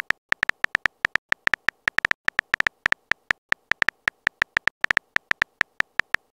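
Keyboard-typing sound effect of a texting-story animation: short, high, beep-like clicks, about five a second at an uneven pace, one for each letter typed into the message box.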